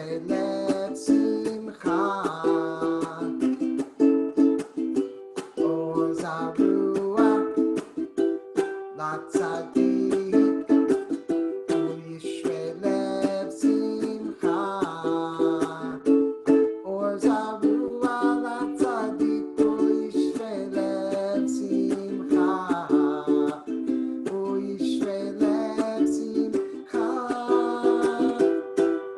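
Acoustic guitar strummed in a steady, lively rhythm, with a man singing a melody over it.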